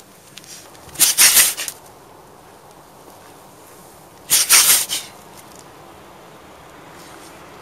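Siberian husky sneezing twice, about three seconds apart, each sneeze a short, forceful, hissing burst.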